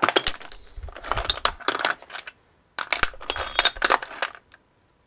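Loose steel lathe accessories (chuck jaws, cutters and tool bits) clinking and clattering against each other as a hand rummages through them in a box, some strikes ringing briefly. The clatter comes in two spells with a short pause between them.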